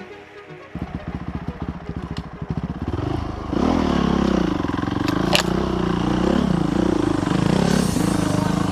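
Enduro dirt bike engine heard from the rider's helmet. It chugs at low revs with separate firing beats, then about three and a half seconds in it gets louder, the revs rising and falling as the throttle is worked on the trail. One sharp knock about halfway through.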